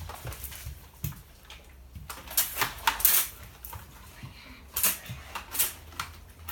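Toy water guns squirting: a handful of short hissing spurts of water, several close together about two to three seconds in and two more near the end.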